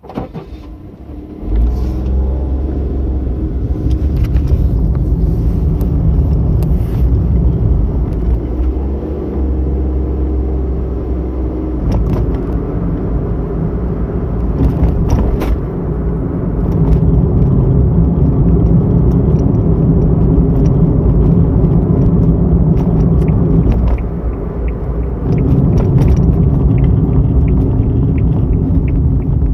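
Car engine and tyre rumble heard from inside the cabin as the car pulls away from a stop and drives along. The low rumble starts abruptly and grows louder about a second and a half in.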